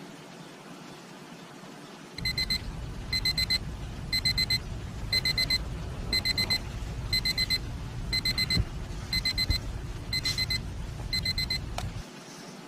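Digital alarm beeping in quick groups of about four high beeps, the groups repeating steadily, over a low rumble. It starts about two seconds in and stops shortly before the end.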